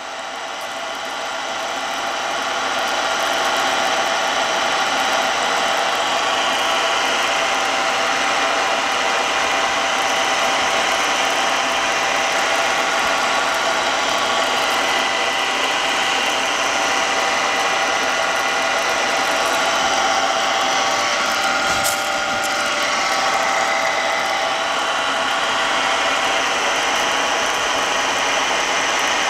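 Milling machine running with its ball end cutter cutting a helical groove in a brass shaft dry under power table feed: a loud, steady mechanical whine of many tones that builds over the first few seconds as the cut comes on, then holds even. A short sharp click about 22 seconds in.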